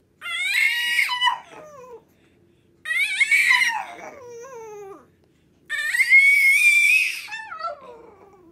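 French bulldog howling three times, each howl a long high wail that slides down in pitch as it ends.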